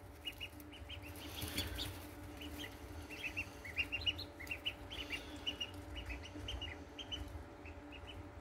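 Blue Runner (Indian Runner) ducklings, a few days old, peeping: many short, high peeps, several a second and overlapping, over a faint steady hum.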